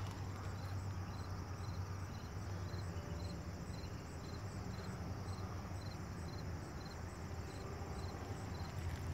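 Faint insects chirping in a steady rhythm, about three high chirps a second, over a low steady rumble.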